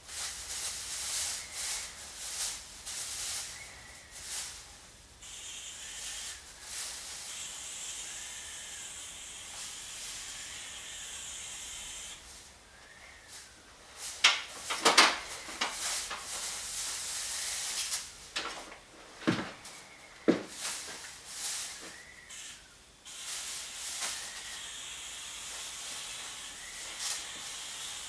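Aerosol can spraying a treatment against psocids (paper lice) onto archive shelving. The hiss comes in short repeated bursts and in longer steady sprays of several seconds, with a few sharp clicks in the middle.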